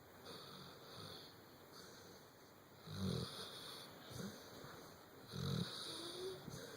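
Snoring during sleep: soft breathing at first, then two louder snores about two and a half seconds apart, each a low rumble with a rasp on top.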